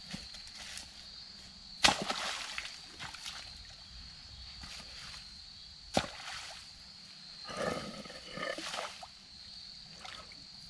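Boots stepping and sloshing through shallow water and wet mud, with two sharp knocks about two and six seconds in as rocks are set down. A faint steady high tone runs underneath.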